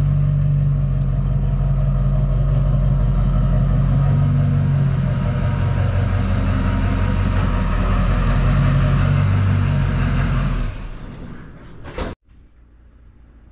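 6.6 L LB7 Duramax V8 turbo-diesel in a lifted Chevy squarebody pickup, running at low speed as the truck reverses into the shop. The steady diesel running dies away near the end, followed by a short click.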